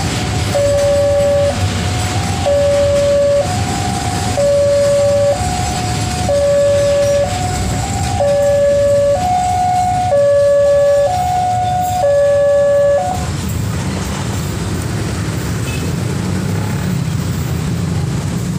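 Railway level-crossing warning alarm sounding an alternating two-note tone, low then high, about one note a second, which stops about 13 seconds in. Under it runs the steady low rumble of a freight train's flat wagons loaded with steel coils rolling past on the rails.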